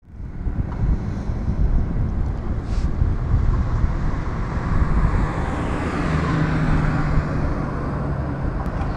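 Roadside traffic noise over a steady low rumble, with a passenger car passing close by, its tyre and engine sound swelling and fading about six to seven seconds in.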